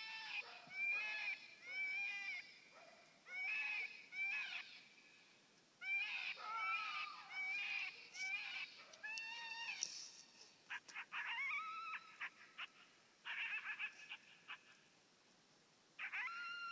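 Coyote barking and yipping in a string of short, arching calls. A quick run of yips comes about two-thirds of the way through, and a longer call begins near the end.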